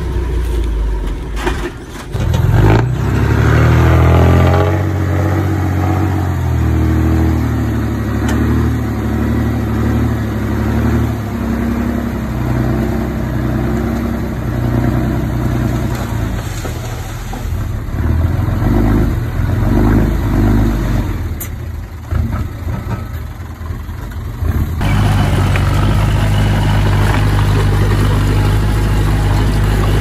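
Bulldozer's diesel engine working, revving up about two seconds in, then rising and falling in pitch under load, with an abrupt change near the end.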